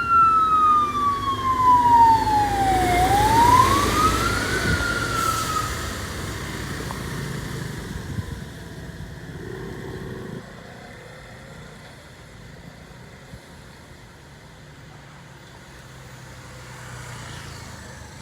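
Emergency vehicle's electronic wail siren sweeping slowly down and back up in pitch, cutting off about six seconds in. Vehicle engine rumble runs under it and then fades to quieter traffic noise.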